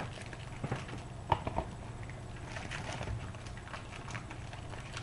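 Sports trading card pack being opened and its cards handled: wrapper crinkling and cards clicking against each other in small irregular taps, sharpest about a second and a half in, over a low steady hum.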